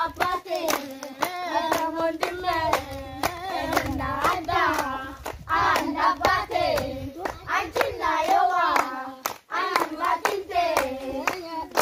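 A group of girls and women singing together while clapping their hands to a steady beat, about two to three claps a second.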